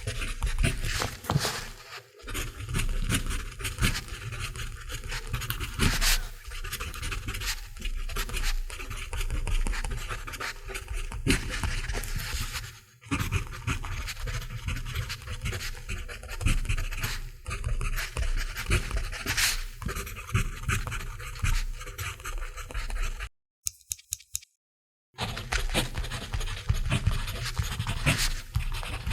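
Mechanical pencil writing on paper: continuous scratchy strokes of the lead across the sheet. There are short pauses about two seconds in and again near the middle, and a silent break of about two seconds shortly before the end.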